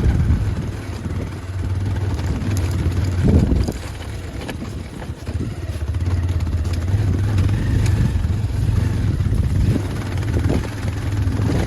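Motorcycle engine running steadily on a rough off-road trail, easing off briefly a couple of times, with scattered knocks and rattles from the bumps.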